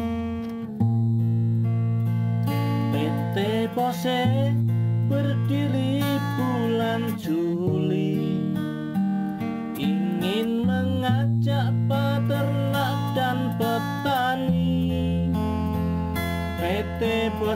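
Background music led by acoustic guitar, with sustained bass notes and a wavering melody line over them.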